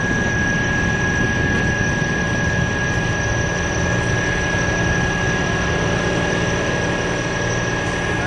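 Steady engine rumble with a constant high-pitched whine over it.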